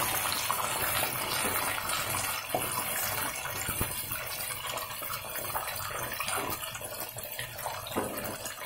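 Batter-coated mushroom pieces sizzling in deep oil in a kadhai, a steady hiss that slowly eases off as the pieces finish frying, with a few light clicks of a metal skimmer against the pan.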